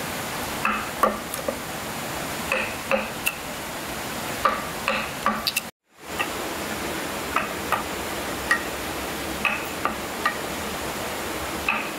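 Irregular light knocks and clicks, some with a short ringing note, over a steady hiss, cut off completely for a moment about halfway through.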